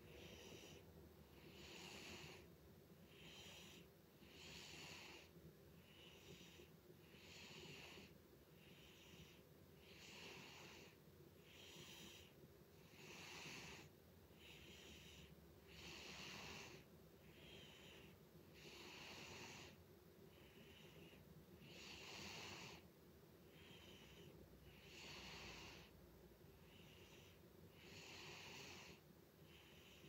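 A sleeping cat snoring softly: airy, wheezy breaths in and out that repeat evenly, a breath in and a breath out every two to three seconds.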